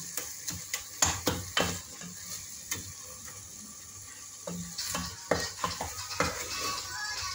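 Wooden spatula stirring spinach in a metal pot, knocking and scraping against the pot's sides in irregular strokes, over a steady sizzle of the frying greens.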